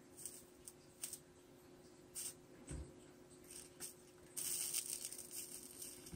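Flux-cored solder and acid flux paste melting onto a twisted wire joint under a Weller soldering gun: faint scattered crackles and pops, then a louder hissing sizzle with crackling about four and a half seconds in that lasts over a second, as the flux boils off into smoke. A faint steady hum runs underneath.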